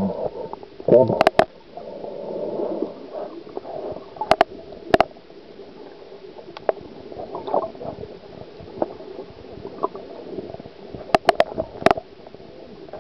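Muffled underwater ambience heard through a waterproof camera held under the sea: a dull gurgling wash, broken by sharp clicks, in pairs about a second in, around four to five seconds in and again around eleven to twelve seconds in.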